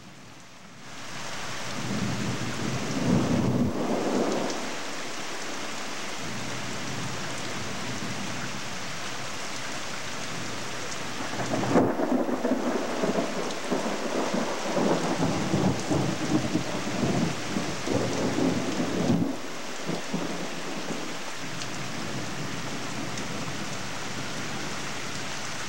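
Steady rain with two long rolls of thunder: a shorter one about two seconds in, and a longer one from about twelve seconds in that rumbles for some seven seconds and cuts off suddenly.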